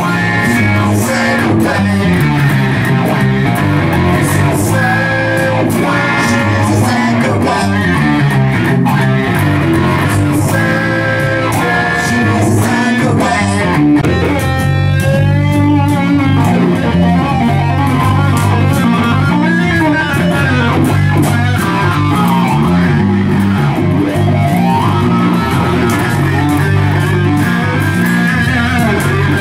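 Rock music with electric guitar and bass in an instrumental stretch without vocals. High guitar notes waver and bend about halfway through.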